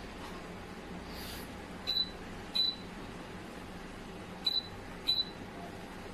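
Moss DC ceiling fan's receiver giving four short high beeps in two pairs as remote-control button presses register, over the steady whir of the spinning fan.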